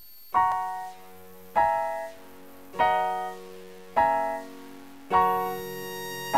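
Music: a piano-like keyboard strikes a chord five times, about once a second, each chord ringing and fading before the next; the last one is held longer.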